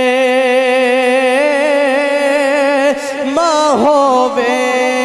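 A man singing unaccompanied, holding one long note that begins steady and takes on a growing vibrato, with a brief ornamented run about three and a half seconds in before he settles onto a held note again.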